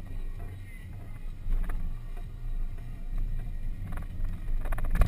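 Engine and tyre rumble inside the cabin of an off-road vehicle on a rough, rutted dirt track, with scattered knocks and rattles and a louder clatter near the end.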